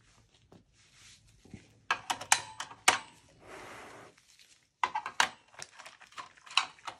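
Scattered clicks and knocks of hands handling an open small-form-factor desktop PC's metal chassis and working a screwdriver at the CPU cooler, with a brief soft scrape about three and a half seconds in.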